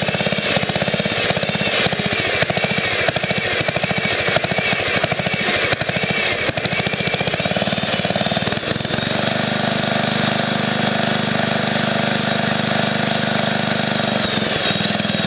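Small engine of an MTD riding mower running with a fast, even firing beat, just brought back to life on gas poured into a carburetor the owner believed gummed up. About nine seconds in its sound changes and it settles into a steadier, fuller run.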